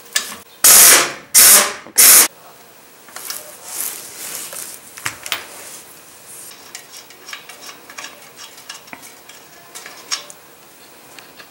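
Pneumatic impact wrench fired in three short, loud bursts, loosening the lug nuts on a pickup's rear wheel, followed by light clicks and rattles as the loosened lug nuts are turned off and handled.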